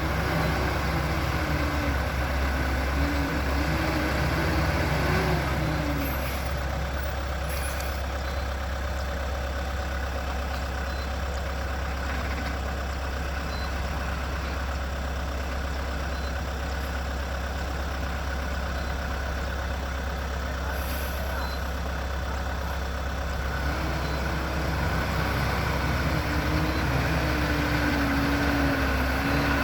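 JCB 3DX backhoe loader's diesel engine running steadily, its pitch rising and wavering as the hydraulics work near the start and again near the end. A few short knocks come in between.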